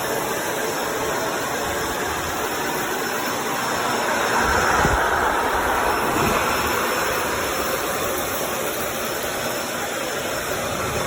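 Upright vacuum cleaner running, a steady rush of motor and airflow that swells a little in the middle.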